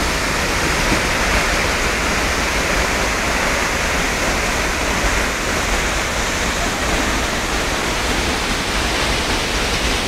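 Athirappally waterfall's water pouring down: a loud, steady, even rush of falling water.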